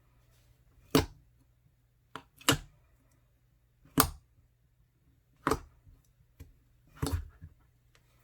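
Crunchy clear slime being pressed and squeezed by hand, giving sharp crackling pops as the air bubbles inside it burst, the loudest about every second and a half.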